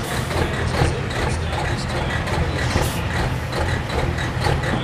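Semi tractor's diesel engine running steadily at low revs, a deep even rumble.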